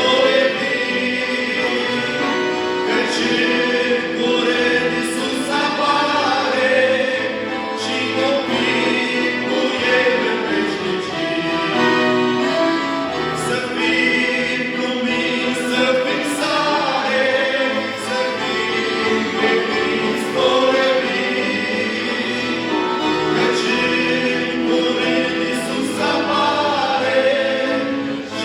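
A group of young singers performing a Christian praise song together, choir-style, in harmony.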